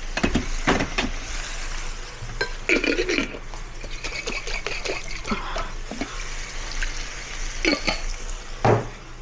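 Cooking utensil stirring in a pot of noodles and water, knocking against the pot several times, with water sloshing; the loudest knock comes near the end.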